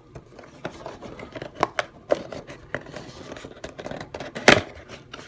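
Cardboard and plastic toy packaging being handled and opened: a run of small clicks, scrapes and rustles, with a sharp knock about four and a half seconds in.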